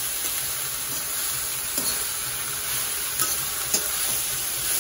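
Shredded cabbage, carrot and capsicum sizzling steadily as they are stir-fried in hot oil in a steel kadhai, with a few light clicks from the stirring.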